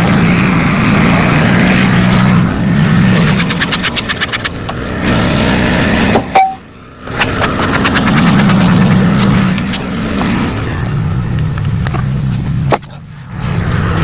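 Wood-Mizer LT15 Go sawmill's engine running steadily, with a rapid flutter about four seconds in. The sound drops out abruptly twice, about halfway through and near the end.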